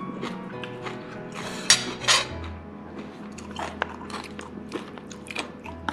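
A metal fork clicking and scraping in a black plastic takeaway tray of food, with two louder clatters near the two-second mark, over soft background music.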